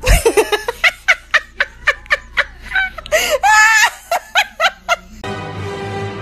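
A person laughing hard in quick, loud bursts, with a longer, high-pitched stretch of laughter about three seconds in. Music starts near the end.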